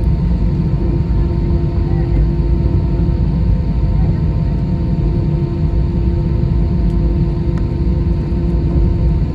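Airbus A320 jet engines running, a steady low rumble with a constant hum over it, neither rising nor falling.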